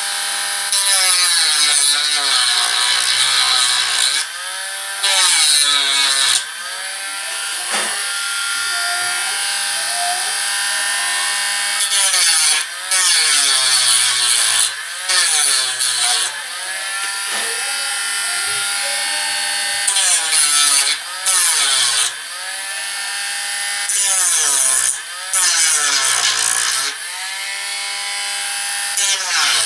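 Dremel Stylus rotary tool with a sanding wheel, its motor whining and dropping in pitch each time the wheel is pressed onto the cannon side walls, with repeated bursts of rasping sanding a second or two long.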